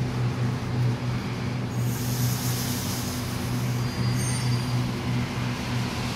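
Sydney Trains Waratah double-deck electric train starting to pull out of the platform: a steady low hum from its electrical equipment, with a hiss of air about two seconds in and brief high whines near the end as it gets moving.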